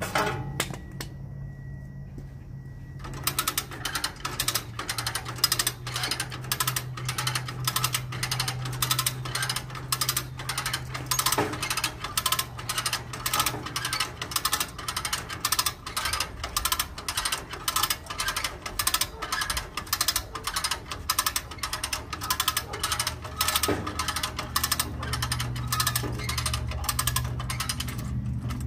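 Hand come-along cable winch being ratcheted, its pawl clicking about twice a second as it hauls a zero-turn mower up onto a trailer. The clicking starts a few seconds in.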